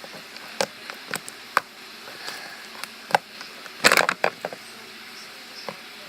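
Homemade slime activated with Tide detergent being squeezed and stretched in the hands, giving scattered sharp clicks and pops. A quick cluster of pops comes about four seconds in.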